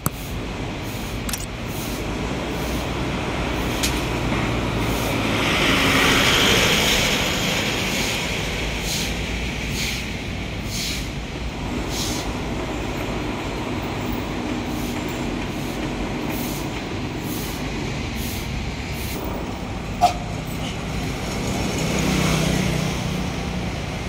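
Street traffic: a steady low rumble with vehicles passing, one swelling to a peak about six seconds in and another near the end. A sharp knock about twenty seconds in.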